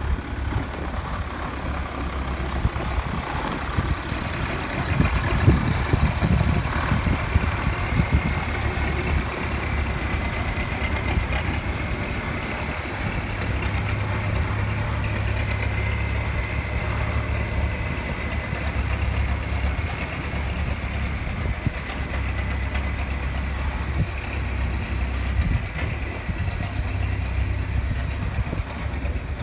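Marshall 125 tractor's diesel engine running steadily at low revs as the tractor drives slowly on gravel, a little louder about five to seven seconds in, with a faint high whine through the middle stretch.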